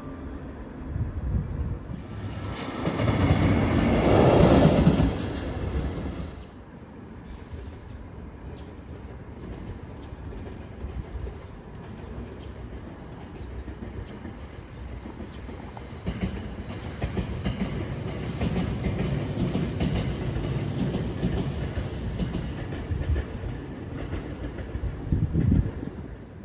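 A train running on rails, loudest a few seconds in, then a steadier rumble of wheels on the track with high wheel squeal over the middle-to-late part, and a short knock near the end.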